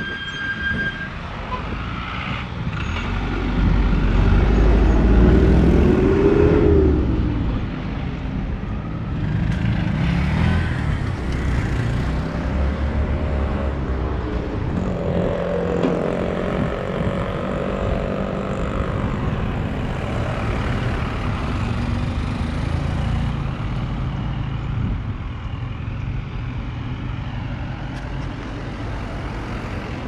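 Road traffic passing close by: truck and car engines rising and fading, loudest about four to seven seconds in, with another vehicle passing about halfway through, then a steady lower traffic hum. A short high steady tone sounds at the very start.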